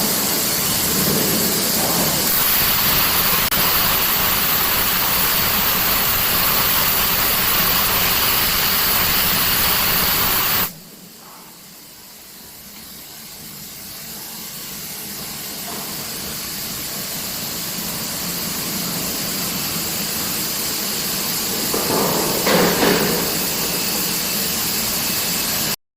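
Steady industrial machinery noise with a hiss and thin high whines from railway induction hardening equipment running. It drops sharply about eleven seconds in, then slowly builds back up.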